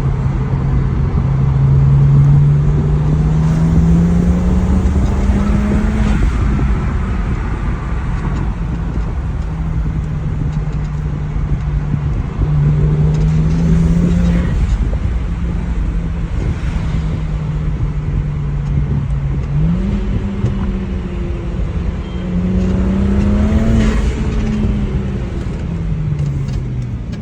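BMW N54 twin-turbo inline-six in a 2007 335i accelerating hard four times. Its pitch climbs through each pull and drops as the throttle closes. At several of those lift-offs there is a short airy whoosh from the TIAL blow-off valve venting.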